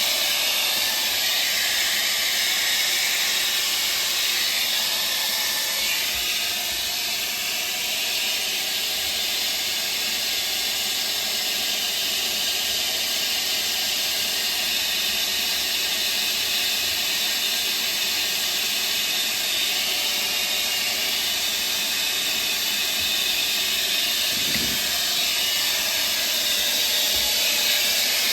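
Hair dryer blowing steadily, defrosting ice built up on a refrigerator's coil.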